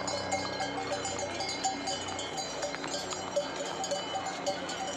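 Many small neck bells on pack ponies and mules jingling, with short clinks and bright ringing notes overlapping throughout.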